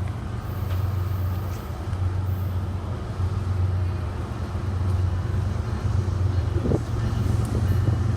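A steady low engine drone, with a short higher-pitched rising sound a little before the end.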